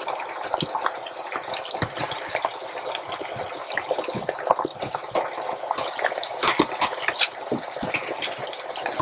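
Wooden spoon scraping chopped cabbage out of a plastic tub into a slow cooker, with many small irregular clicks as the pieces drop and the spoon knocks. A steady hiss runs underneath.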